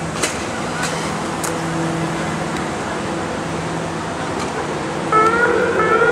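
Steady city street noise with vehicles moving. About five seconds in, a police siren starts up loudly, its wail rising in pitch.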